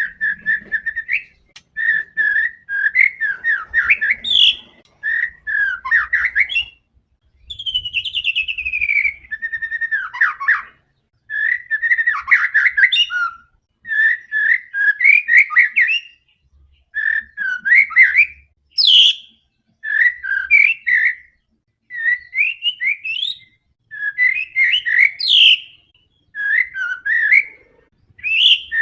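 White-rumped shama (murai batu) in full song: phrase after phrase of fast, varied whistles and chattering notes with brief pauses between them. About eight seconds in comes a long whistle sliding downward.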